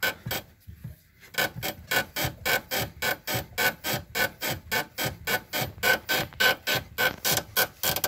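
Lifan X60 rear suspension squeaking, a short pitched squeak about four times a second with a brief pause about a second in, as the suspension compresses and rebounds. The squeak persists after lubricating everything within reach.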